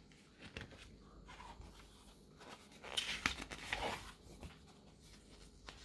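Paper pages of a softcover book being turned, a few soft rustles with the loudest swishes about three to four seconds in.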